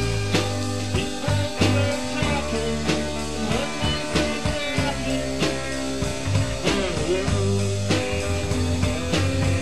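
Psychedelic rock song with electric guitar over changing bass notes and a steady drum beat.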